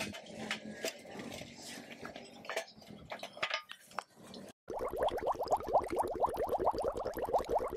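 Pieces of split kindling clattering and knocking against the thin stainless-steel walls of a folding fire pit as they are loaded in. After a brief cut-out about four and a half seconds in, a fast, evenly repeating pulsing sound takes over.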